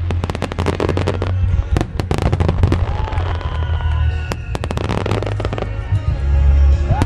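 A Starmine fireworks barrage: dense, rapid cracks and pops from many shells bursting in quick succession over deep booming rumble, with music playing alongside.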